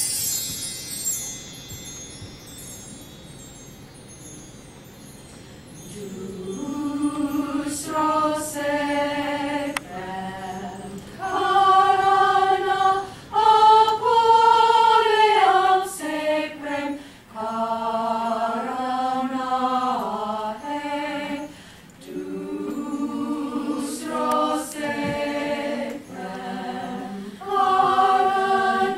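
Women's choir singing a cappella, starting about six seconds in, in held, shifting chords. At the very start a brief high ringing fades out.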